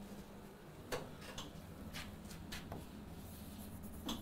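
Faint, scattered light ticks and taps, then chalk scratching on a blackboard near the end as a word starts being written.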